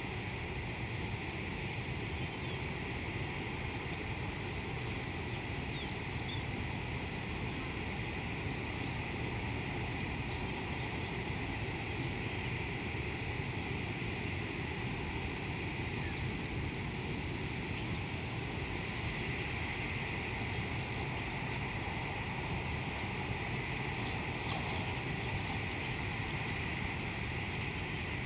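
Steady outdoor bush ambience: a continuous high-pitched insect drone over a low rumble, with a few faint chirps here and there.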